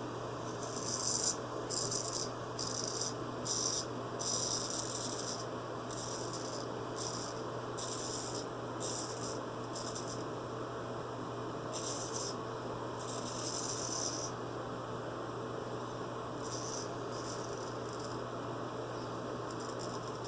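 Straight razor scraping through lathered stubble: a series of short, raspy strokes, several in quick succession in the first few seconds, then more after pauses. A steady low hum runs beneath.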